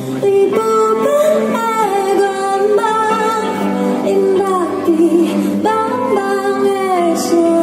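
A woman singing a slow melody live over acoustic guitar. The voice comes in about half a second in, with long held notes.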